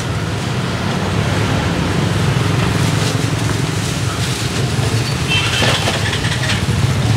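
Steady low drone of a motorcycle engine running without change, with faint clicks and clinks of utensils at the food stall.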